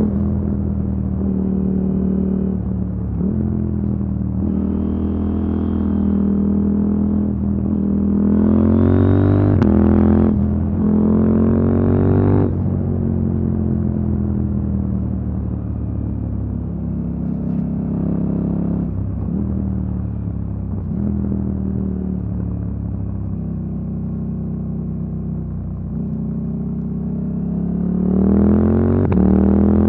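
KTM Duke 890 R's parallel-twin engine through an Akrapovic silencer with the catalyst removed, ridden on the road. The revs climb in two pulls, each ending in a sharp drop about 10 and 12 seconds in. It then runs steadier at lower revs before pulling up again near the end.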